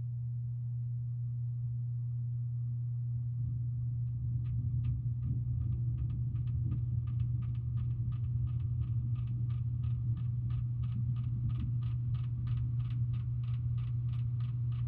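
Hampton Bay Littleton ceiling fan running, its motor giving a steady low hum. About four seconds in, the sound gets a little louder and a regular clicking begins, about three clicks a second, keeping time with the spinning fan.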